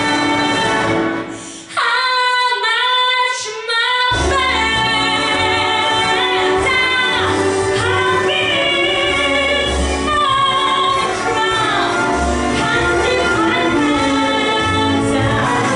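A female singer sings a song with vibrato over an accompaniment, likely a recorded backing track. The bass of the accompaniment drops out about two seconds in and comes back about two seconds later.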